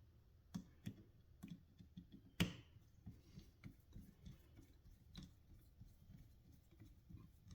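Faint, irregular clicks and ticks from the torque wrench's ratchet mechanism being worked by hand as its pawl begins to catch, with one sharper click about two and a half seconds in.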